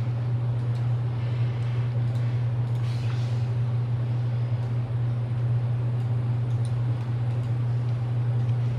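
A steady low hum, with faint rustling and a few light clicks as paper stickers are handled and pressed onto planner pages.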